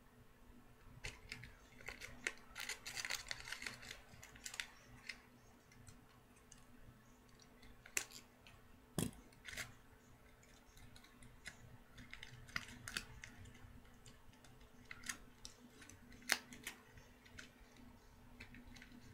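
Tin foil and duct tape crinkling and crackling as they are wrapped and pressed by hand, in scattered sharp clicks. The crackling is densest about two to four seconds in, with a few louder single clicks later, over a faint steady hum.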